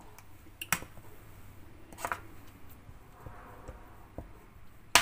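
Metal spoon stirring thick chili paste in a stainless steel pan, with three sharp clicks of the spoon against the pan, the loudest near the end.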